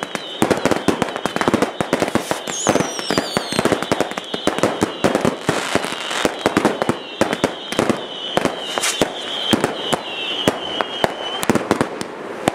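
Fireworks going off in a dense barrage of rapid bangs and crackling. A high whistling runs through it until near the end, and a falling whistle comes about two and a half seconds in.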